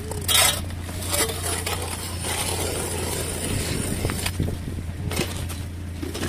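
Hand ice auger working in a freshly drilled hole in lake ice, its steel blades scraping and crunching through ice chips. There are sharp crunches about half a second in and again just after a second.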